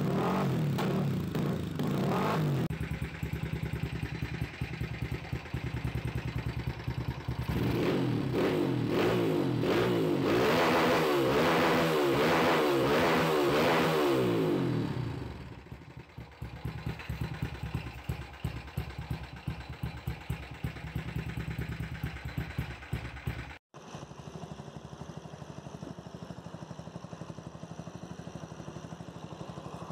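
Tuned single-cylinder motorcycle engines revving hard, pitch rising and falling in repeated pulls for about the first half. The revving then drops to an idle with an uneven beat, and after a sudden cut a little past two-thirds through another engine idles steadily.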